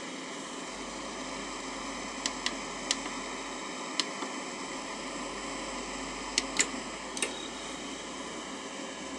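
Steady whir and hiss of a laser projector's cooling fan, with about seven short sharp clicks scattered between about two and seven seconds in.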